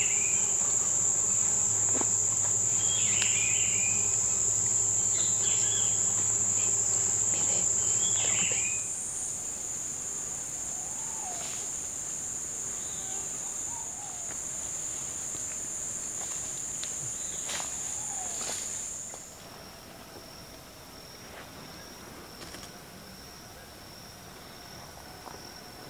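Steady, high-pitched drone of insects, loudest for the first nine seconds or so with a few short bird chirps over it. It then softens and changes, and at about nineteen seconds drops to a quieter, slightly lower steady insect trill.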